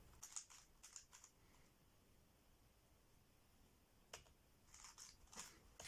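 Speedcube being turned by hand: faint sharp clicks of the layers snapping round, a few in quick succession near the start and again in the last two seconds, with a quiet pause between.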